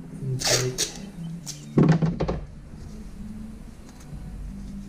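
Tools and parts being handled in a Sea-Doo RXDI's engine bay during engine removal. A short scraping rustle comes in the first second, then a quick cluster of sharp knocks and clatter about two seconds in, over a steady low hum.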